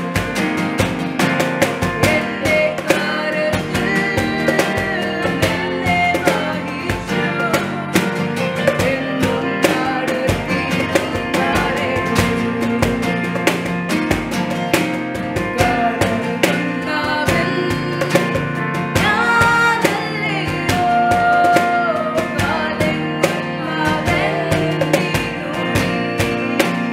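Live acoustic worship song: two women singing together over a strummed acoustic guitar and keyboard.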